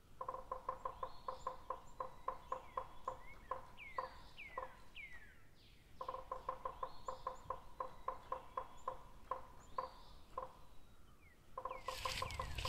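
Looped bird-like calls: quick clucking pulses, about five a second, with falling chirps above them, the same pattern starting over about six seconds in. A rush of noise comes in near the end.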